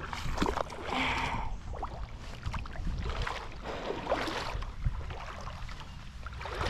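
Creek water splashing and sloshing in several irregular surges over a steady low rumble.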